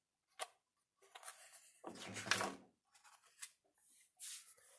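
A picture book's page being turned by hand: a light tap, then paper rustling and sliding for a second or two, and another short swish near the end.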